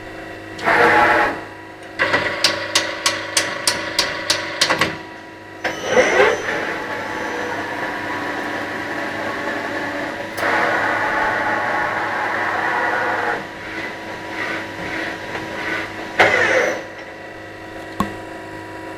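CNC turret lathe running through its automatic cycle: steady motor and servo whine over mains hum as the carriage and turret move. A quick run of about ten sharp clicks comes a few seconds in, a louder steady stretch runs through the middle, and short noisy bursts come three times.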